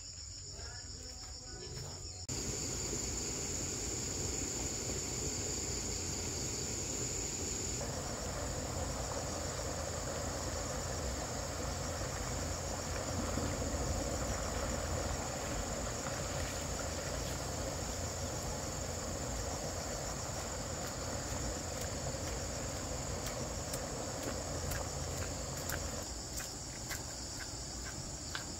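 Insects chirring steadily in a high continuous drone, over an even background hiss that gets louder about two seconds in and eases near the end.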